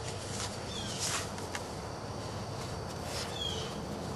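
Light scraping and rustling of rocks being handled in sand, with a bird giving a short, falling chirp twice.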